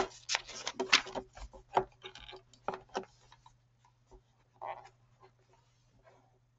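Pages of a paperback book being turned and pressed flat. There are quick paper rustles and handling clicks, busiest in the first three seconds, then only a few faint taps.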